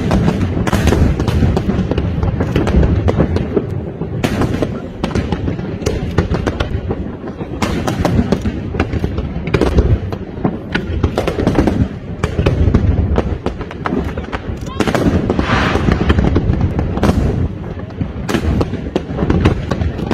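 Aerial fireworks display: a rapid, continuous string of shell bursts, booms and sharp cracks, with a stretch of crackling about three-quarters of the way in.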